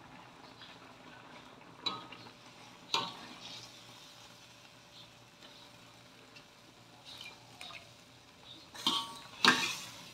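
Metal spatula clinking and scraping in a steel wok as boiled banana blossom is scooped out of its water, with single sharp clinks about two and three seconds in. Two louder clatters, with water, come near the end as the blossom goes into a steel bowl of water.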